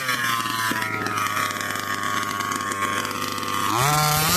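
Small two-stroke engine of a radio-controlled car running at high revs. Its pitch eases down a little and holds steady, then rises again as it revs up near the end.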